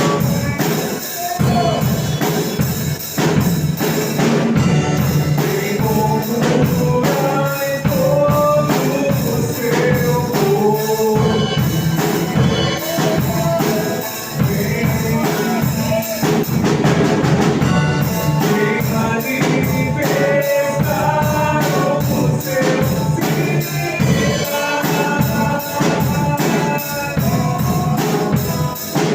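Live church worship band playing a praise song, with a drum kit keeping a steady beat under melodic instruments.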